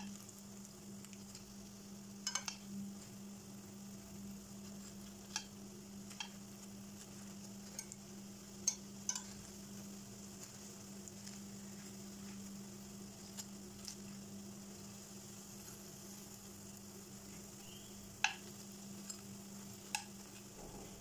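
Spring rolls frying in shallow oil in a nonstick pan with a faint, steady sizzle, over a steady low hum. Metal tongs turning the rolls give about a dozen short sharp clicks and taps against the pan.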